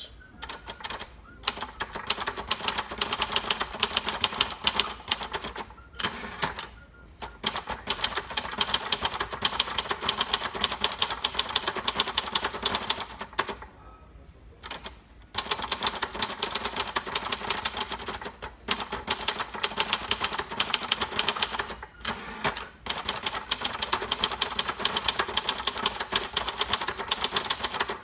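1970 Royal Sprite manual portable typewriter, built by Silver-Seiko, being typed on at speed: a fast, snappy run of key strokes, the type bars striking a fairly hard platen. The typing stops for a few brief pauses, the longest about halfway through.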